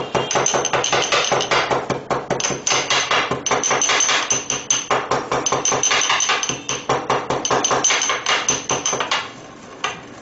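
Pestle pounding whole cumin seeds coarsely in a small mortar: rapid, even knocks, about five or six a second, with a couple of brief pauses, stopping about nine seconds in.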